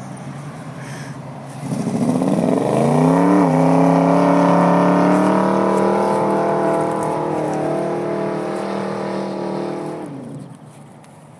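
Ford XB Falcon GT's V8 revved hard about two seconds in, rising quickly in pitch and held at high revs as the car accelerates away across grass, then backing off near the end.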